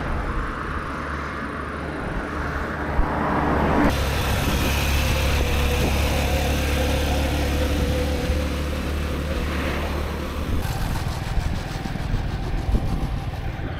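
Road traffic: motor vehicles running past with a steady engine hum and road noise. The sound changes abruptly about four seconds in and again near eleven seconds.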